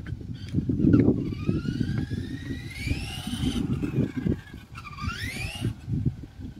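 Electric motor of a radio-controlled model van whining as it speeds up and eases off on the road: one whine rises over about two seconds and falls away, then a second dips and climbs again about five seconds in, over a low rumble.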